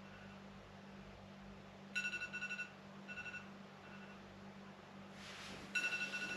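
Electronic alarm beeping: groups of quick high beeps, a longer run followed by shorter ones, repeating about every two seconds and starting about two seconds in. A low steady hum sits underneath, and a soft rising hiss comes just before the last round of beeps.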